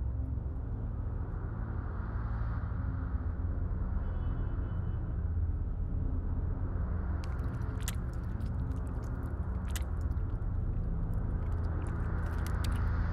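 Steady low rumble, with scattered sharp clicks and crackles starting about seven seconds in as soft, wet objects are crushed between the hands.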